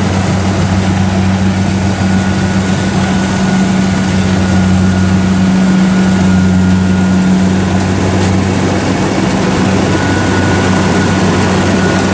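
Kubota DC70 combine harvester's diesel engine running steadily under load as the tracked machine cuts rice through soft, sticky mud, a low hum with a faint high whine that comes and goes.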